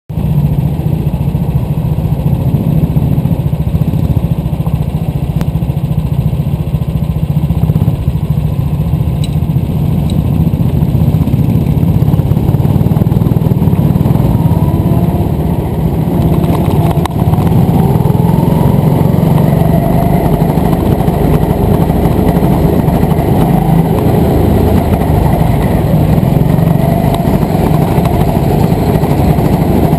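Go-kart engines running close by: a steady drone while the karts idle and creep in the pit lane, then revving with rising and falling pitch from about halfway through as the karts accelerate onto the track.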